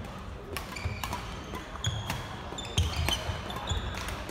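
Badminton doubles rally: sharp racket strikes on the shuttlecock, sports shoes squeaking in short bursts on the wooden court floor, and thudding footfalls as players move and lunge.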